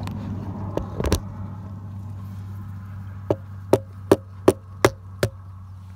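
A raw egg tapped six times against a hard edge, about three taps a second, to crack its shell, after a few light handling clicks.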